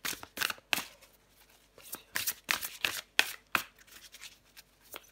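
A deck of oracle cards being shuffled by hand: quick, irregular slaps and flicks of the cards in two bursts, with a short pause about a second in and a quieter stretch near the end.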